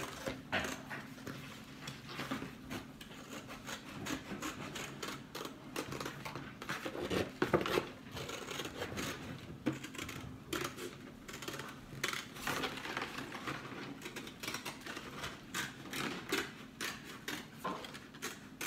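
Scissors cutting a circle out of soda-box paperboard: a run of irregular snips and crunches as the blades bite through the board and it is turned in the hands.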